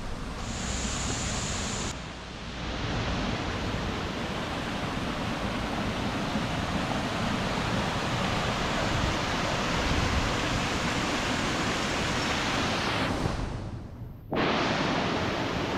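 Steady rush of flowing brook water, a full even hiss. It dips briefly about two seconds in and cuts out sharply for a moment near the end before coming back.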